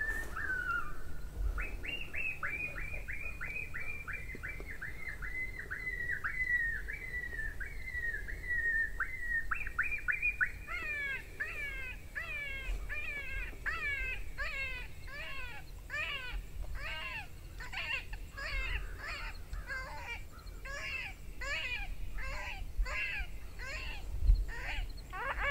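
Electronic game call playing a coyote ki-yi, the yelping of a hurt coyote: a fast string of short high yelps, about four a second. About ten seconds in, the yelps become longer and slide from high to low, about two a second.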